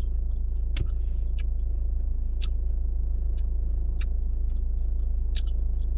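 Steady low hum of a car engine idling, heard inside the cabin, with a few short faint clicks scattered over it.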